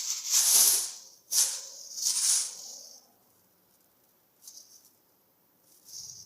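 Plastic crinkling and rustling as a kitten plays with it: several loud rustles in the first three seconds, then two short faint ones.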